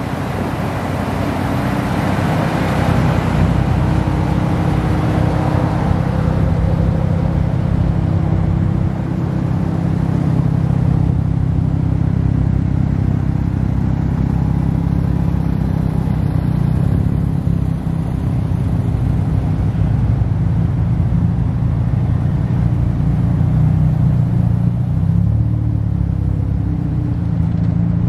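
Several Mazda RX-7 FD3S cars with twin-rotor rotary engines rolling slowly past at low revs, their exhausts making a steady low running sound.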